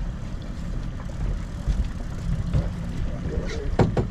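Boat motor running steadily at trolling speed, a low rumble with wind and water noise, and two sharp knocks close together near the end.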